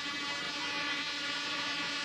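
Modified pulling tractor's multi-engine setup of four Chevrolet V8s running at a steady speed after its pull, a steady drone with many overtones.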